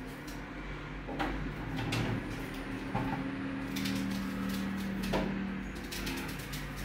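Knife slicing through a whole onion held in the hand, a run of crisp cuts with slices dropping onto a baking tray. A low hum sounds underneath for a few seconds in the middle.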